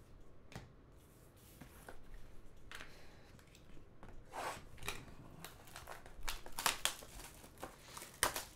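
A sealed trading-card hobby box being slit open with a small blade and its cardboard lid pulled open: scratchy slicing, tearing and rustling with small clicks of cardboard. It grows louder after a few seconds and is loudest just before the end.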